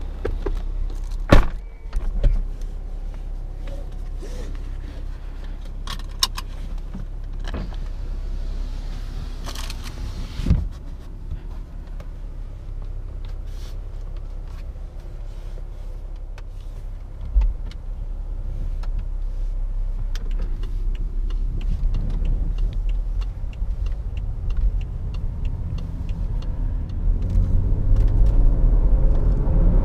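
BMW 535i's turbocharged straight-six running at idle, with a thump about a second in as the driver's door is pulled shut and a few cabin clicks and knocks after it. Near the end the engine rises as the car pulls away and picks up speed.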